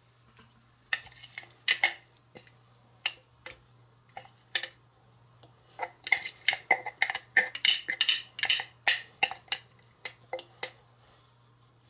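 Wooden spoon scraping and tapping against a plastic food-chopper bowl as puréed salsa is scooped out: scattered sharp clicks at first, then a quick run of clatter about halfway through.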